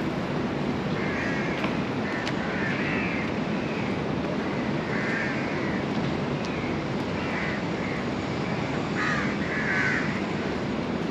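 Crows cawing over and over, short harsh calls every second or two, over a steady background rumble of city noise.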